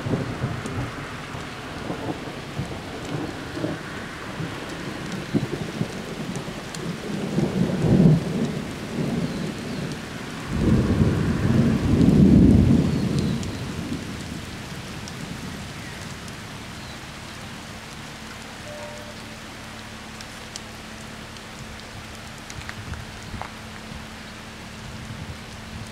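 Thunder rumbling during a rainstorm over a steady hiss of rain. A short rumble comes about eight seconds in, and a longer, louder one swells a couple of seconds later and dies away.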